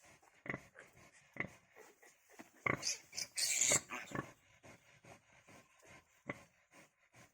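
Pigs grunting in short, scattered calls, with a louder, high squeal about three seconds in, as from the newborn piglets or the sow.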